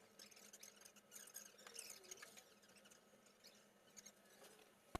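Near silence: faint scattered clicks and ticks from work at the car's open engine bay, heard from inside the cabin, with one sharper click just before the end.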